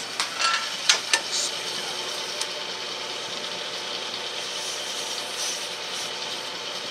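Small metal lathe running steadily, with a cluster of rattling clicks and knocks in the first second or so.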